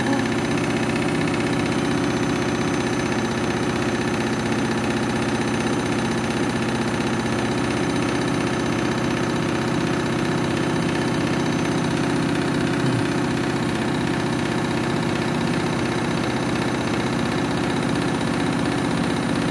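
Washing machine spinning an overloaded drum in its final spin: a steady motor whine over a fast, even rumble as the drum and cabinet vibrate.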